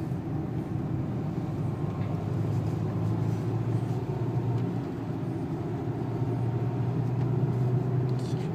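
Renault 2.0-litre turbo-diesel engine running at a steady drone inside the cabin of a front-wheel-drive estate car at low speed, with the hiss of tyres on a wet road beneath it.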